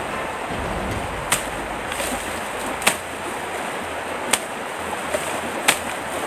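Four sharp chopping knocks of a blade striking a bamboo stem at the base of the clump, about a second and a half apart, over the steady rush of river water.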